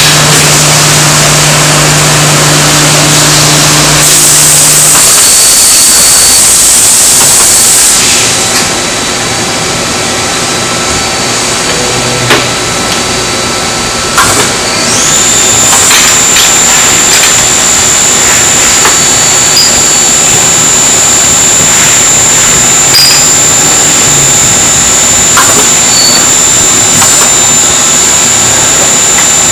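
Mazak SQT-15MSY CNC lathe running through a machining cycle: a steady mechanical whir and hiss, with a couple of sharp clunks about halfway through as the tool turret indexes. A steady high-pitched whine then sets in and holds to the end.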